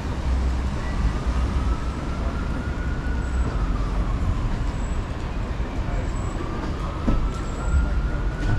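Heavy city street traffic rumble, with a distant siren wailing slowly up and down twice.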